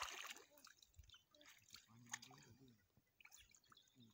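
Faint splashing and dripping of shallow water, with a short faint voice about two seconds in.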